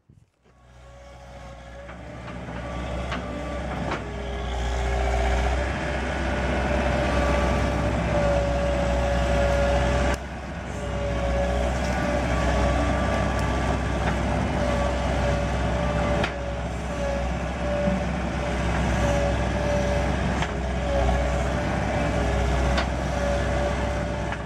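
John Deere 320 skid steer's diesel engine running hard as it works dirt along a trench, a steady whine riding over the low engine drone. It grows louder over the first few seconds.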